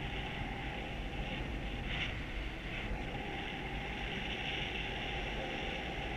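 Steady rush of airflow over the camera microphone of a paraglider in flight, with a faint steady tone underneath.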